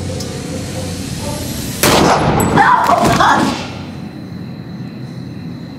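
A gun firing, loud and sudden, about two seconds in, with more sharp sound for about a second and a half after it.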